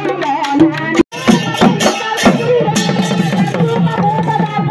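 Mising folk drumming on barrel drums (dhol), each beaten with a stick on one head and a bare hand on the other, in a quick steady rhythm with men's voices singing over it. The sound drops out for a moment about a second in, then the drumming and singing go on.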